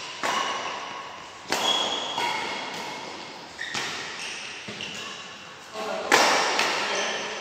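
Badminton rackets striking a shuttlecock in a doubles rally: sharp hits every second or so, each echoing in the large hall, the loudest about six seconds in.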